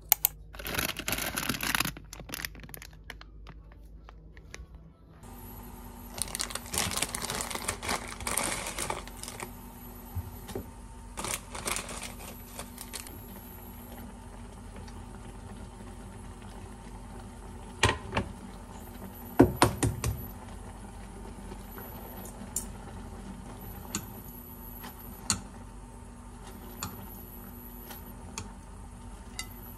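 Plastic ramen packaging crinkling as it is handled and opened, with scattered clicks and a few sharp knocks of kitchenware. After about five seconds a steady hum runs underneath.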